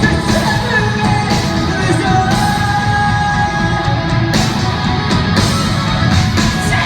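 Live rock band playing loudly, with distorted electric guitars, bass and drums, and a singer's voice over the top, heard through a crowd recording in a large hall.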